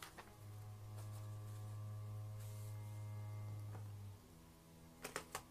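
A faint, steady low electrical hum that comes in about half a second in and stops at about four seconds, over light paper handling with a few soft clicks; a quick run of three sharp taps near the end.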